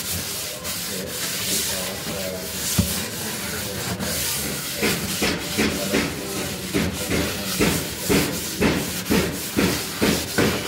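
Scouring sponge scrubbing the soapy top of a gas cooker: steady rubbing that turns, about halfway through, into quick back-and-forth strokes, roughly two or three a second.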